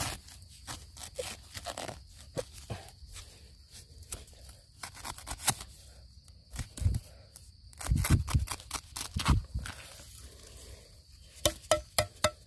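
Crackling and rustling of dry leaf litter and soil as a bamboo shoot is gripped by hand and worked loose from the ground. There are a few deeper thuds around the middle and a quick run of sharp snaps near the end.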